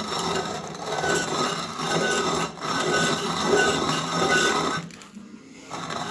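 Antique hand-cranked coffee grinder grinding coffee beans: a continuous crunching rasp that surges with each turn of the tight crank, breaking off briefly about five seconds in.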